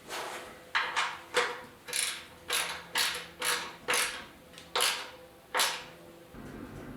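A hand tool worked in about ten quick strokes, roughly two a second, each a short creaking rasp. Near the end the strokes stop and a low steady hum comes in.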